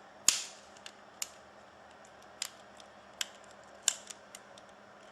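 Plastic clips of a BlackBerry Torch 9800's bezel snapping loose as it is pried off: a series of sharp, irregular clicks, loudest about a third of a second in and just before four seconds.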